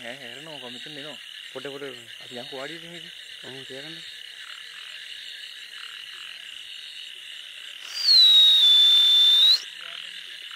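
Frogs croaking in a paddy field: a run of about six wavering calls in the first four seconds, over a steady high-pitched background. About eight seconds in, a loud high-pitched whine sounds for about a second and a half, then cuts off.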